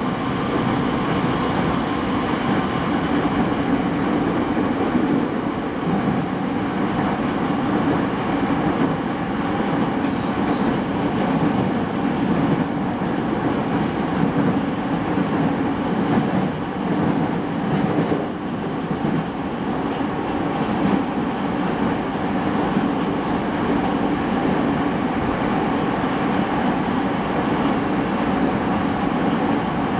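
Running sound inside a JR East E217-series electric multiple unit, recorded in a motor car: a steady rumble of wheels on rail and running gear with a faint steady whine, the train moving at speed throughout.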